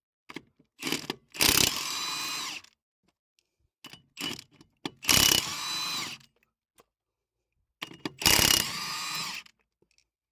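Battery-powered impact wrench working the wheel's lug nuts: three bursts of about a second each, each starting loud and then running steady, with short trigger blips in between.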